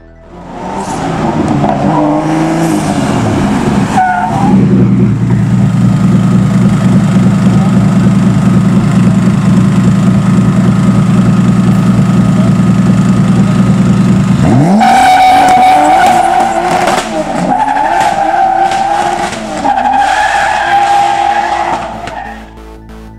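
BMW E46 race car's engine revving, then held at steady high revs for about ten seconds. It drops sharply and revs up again, with the tyres squealing in a high, steady tone for several seconds.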